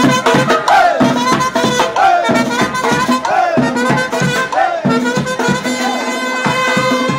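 Street marching band playing Latin music, trumpets and other brass repeating a swooping phrase about once a second over a steady beat.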